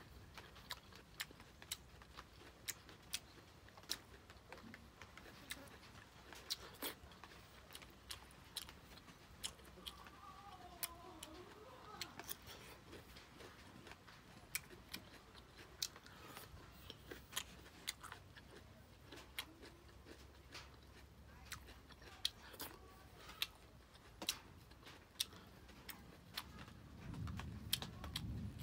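Close-up chewing of stir-fried broccoli and shrimp: a string of short, sharp crunches and mouth clicks, coming irregularly about one or two a second.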